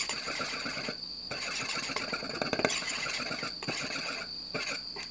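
Wire whisk beating runny pancake batter in a ceramic bowl, a fast run of scraping and clinking as the wires hit the bowl, with short pauses about a second in and near the end. A steady high-pitched whine sits underneath.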